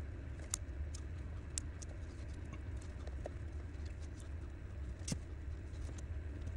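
Small scattered clicks and rustles of electrical wire being handled, its stripped ends twisted together and then worked with electrical pliers, over a steady low hum. The sharpest click comes about five seconds in.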